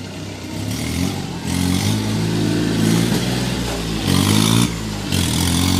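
An engine running and being revved up and down, with a loud hissing rush about four seconds in.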